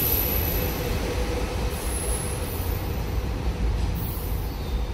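SEPTA Silverliner IV electric multiple unit pulling out of the station, its wheels rumbling over the rails with thin high wheel squeals near the start and about two seconds in.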